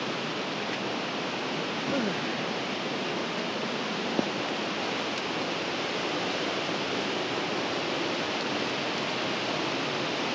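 Steady rushing of a waterfall cascading over smooth granite water slides, an even, unbroken wash of water noise. One brief click about four seconds in.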